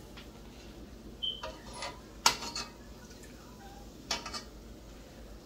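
A metal ladle knocks and clinks against a metal cooking pot about four times as it scoops fried gulab jamun out of the hot oil. The loudest knock comes a little past two seconds in.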